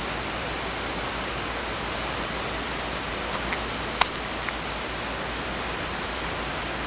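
Steady hiss of the recording's background noise, with a few small clicks, the sharpest about four seconds in.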